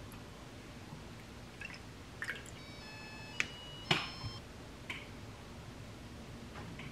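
Liquid seasonings being poured and dripped into a small glass bowl, with light taps and clicks of a plastic measuring spoon and bottles against it. Two sharper taps about three and a half and four seconds in come with a brief high ringing.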